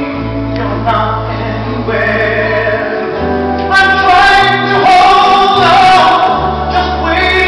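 Music: a song with several singing voices over an accompaniment of long held bass notes.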